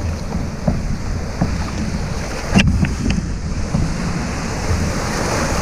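Breaking surf and choppy water washing around a kayak, with wind buffeting the microphone. There is one sharp knock about halfway through.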